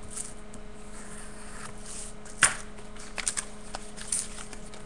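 A mail package of trading cards being opened by hand: scattered rustling and crackling of envelope and card packaging, with one sharp crackle about two and a half seconds in and a few smaller clicks after it. A steady electrical hum runs underneath.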